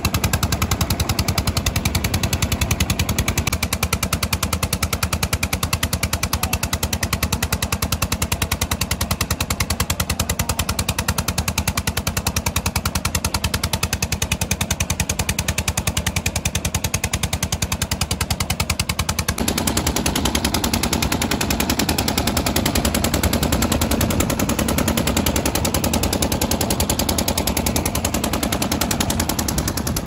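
The boat's open flywheel engine, a stationary diesel, running steadily with a fast, even chugging beat as it drives the boat along. About two-thirds of the way in, the sound turns brighter and fuller.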